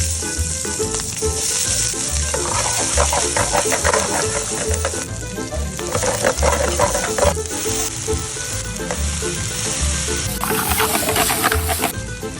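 Chicken frying in hot oil with a steady sizzle. Twice it is stirred, with a patter of scraping clicks: first from about two seconds in to about seven, then again near the end.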